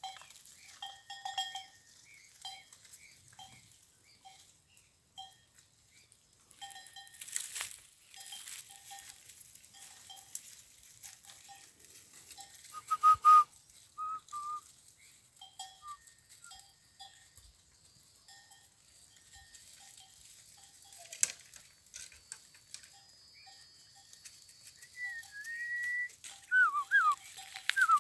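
A herder whistling to call his goats and sheep: a few short whistles sliding up and down, clustered about halfway through and again near the end. Under them runs a short high clinking note, repeating irregularly throughout, with a few brief knocks.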